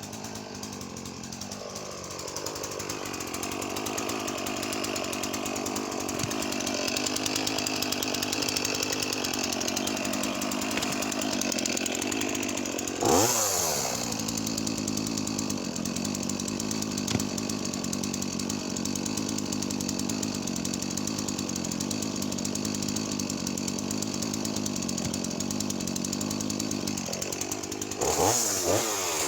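Makita DCS4610 45cc two-stroke chainsaw running under load through wood. Its pitch drops early on and then holds steady, with a brief rev about halfway through and another near the end.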